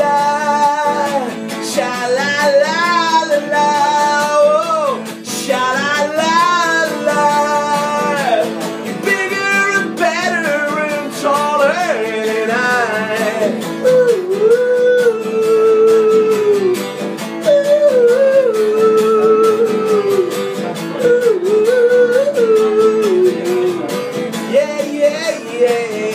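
A man singing to a strummed acoustic guitar, live and unamplified; the voice slides through long held notes that bend up and down in the second half.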